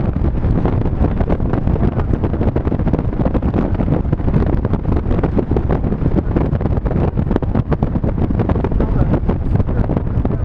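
Heavy wind buffeting the microphone in the open cockpit of a Mazda MX-5 roadster driving at speed, with the car's running and road noise underneath. It is steady and loud, with no break.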